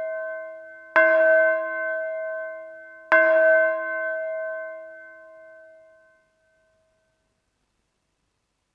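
A bell clanging: the ring of an earlier strike dies away, then the bell is struck twice about two seconds apart, each clang ringing with several overtones and slowly fading. The second clang rings out for about three seconds.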